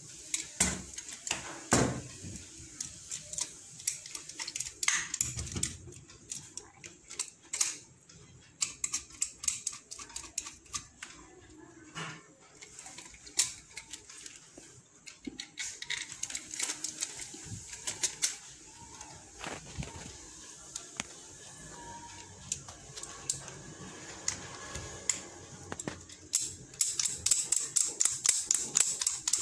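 Plastic switch and socket modules and the board plate clicking and tapping as they are handled and fitted, with quick runs of clicks in the middle and again near the end.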